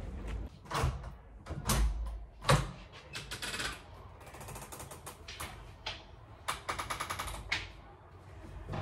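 Knocks, clicks and quick rattling runs from a large inward-opening window being swung open and someone clambering up onto its sill.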